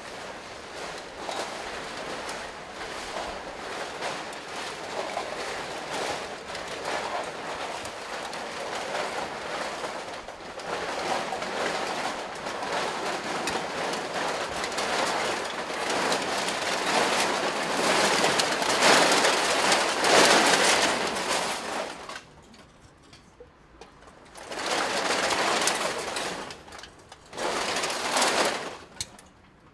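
Many aluminium drink cans on full-body can costumes rattling and clattering against each other as the wearers move. The sound swells steadily, stops abruptly about 22 seconds in, then returns in two short bursts.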